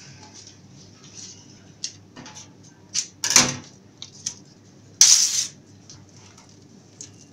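Shiny ribbon rustling and crinkling as hands loop and pinch it into a bow, in many short rustles. Two louder swishes come a little after three seconds and about five seconds in.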